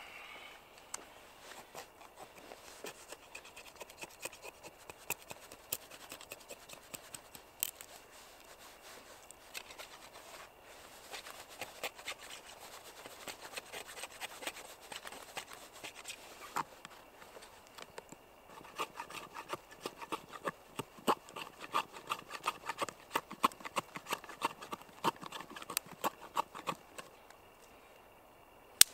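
A knife blade shaving thin curls off a wooden stick, carving shavings for fire tinder: a run of short scraping strokes, faster and louder in the second half. A sharp click stands out near the end.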